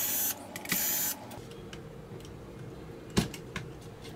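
Graphics card being taken apart: two short whirring bursts of a small electric screwdriver in the first second or so, then light scattered clicks of screws and metal parts, with one sharper click about three seconds in.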